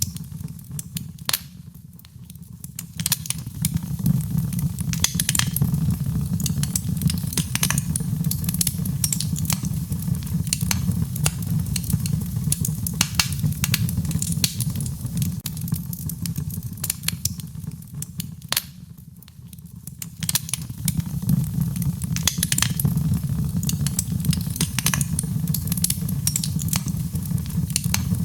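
Fire crackling in a fireplace: a steady low rumble of flames with frequent sharp pops and snaps. The sound briefly dips about two seconds in and again about two-thirds of the way through.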